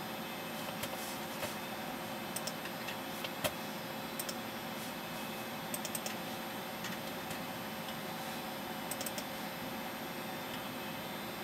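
Clicking of a computer's mouse buttons and keys as the machine is operated: scattered sharp clicks, a few in quick pairs, the loudest about three and a half seconds in. Underneath runs a steady hum with a faint whine from the computer's fans.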